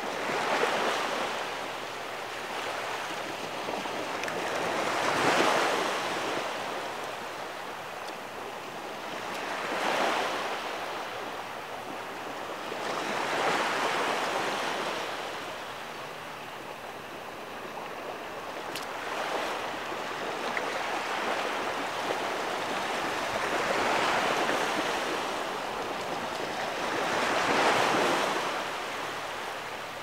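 Small waves of an incoming tide washing onto a sandy beach, the surf noise swelling and fading about every four to five seconds.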